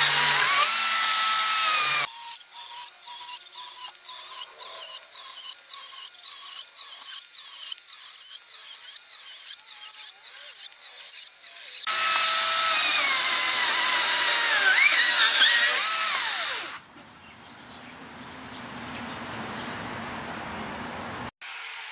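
Makita 40V XGT brushless top-handle chainsaw cutting through a square softwood post under heavy feed pressure. Its motor pitch glides as it loads, and for about ten seconds it pulses rhythmically as it is pressed hard into the cut. Then it runs loud again until about 17 seconds in, when it stops abruptly; the owner puts the cut-out down to the battery getting too hot to work.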